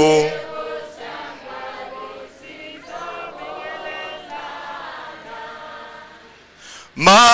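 Congregation singing a hymn together in chorus, softer than the lead voice and trailing off about six seconds in. A single loud singing voice comes back in near the end.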